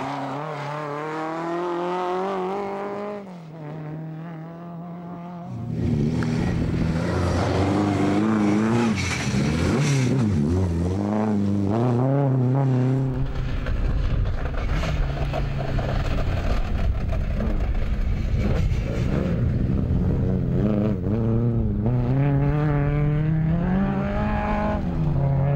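Rally Lada saloons' four-cylinder engines revving hard, the pitch climbing and dropping repeatedly with gear changes and lifts. From about halfway a heavy low rumble runs underneath.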